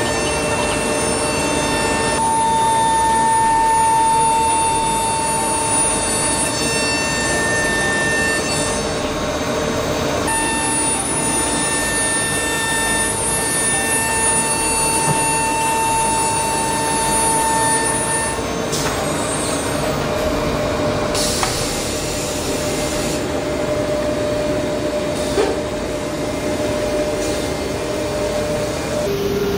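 CNC nesting router spindle running and cutting through a wooden board panel: a steady high whine in several tones over a dense machine noise. The whine breaks off briefly about nine seconds in, stops about eighteen seconds in, and the machine noise carries on.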